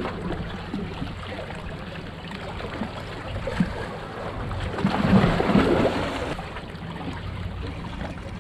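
Sea waves washing against rocks, a steady wash that swells louder about five seconds in and then settles.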